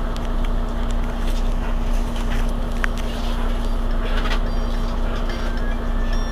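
Mercedes-Benz Citaro C2 city bus idling at a stop, its diesel engine running with a steady rumble and hum. A high electronic beeping starts about five seconds in.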